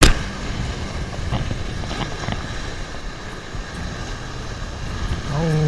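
Surf breaking and washing over shoreline rocks, with wind rumbling on the microphone and a few faint clicks. Near the end a low voice-like tone starts and falls in pitch.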